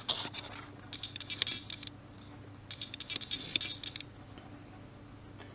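A small plastic automotive relay handled in the fingers: a sharp click, then two runs of rapid light clicking and scratching as its case and metal pins are turned over and rubbed.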